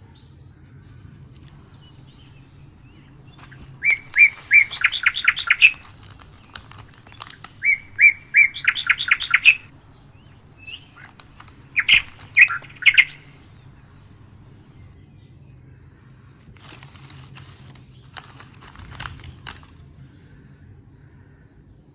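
A songbird chirping in three short runs of quick, repeated high notes. A few brief rustling noises come near the end.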